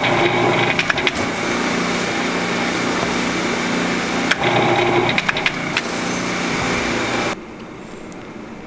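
Electric donut-filling machine running with a steady hum and whine, with a few clicks as its twin nozzles pump strawberry filling into donuts. The machine sound cuts off about seven seconds in, leaving faint room noise.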